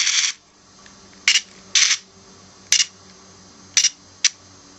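Power Rangers in Space Battlizer toy's electronic 'rapid punch' sound effect, coming out as about five short, harsh bursts at uneven intervals instead of a steady run. It is not working well.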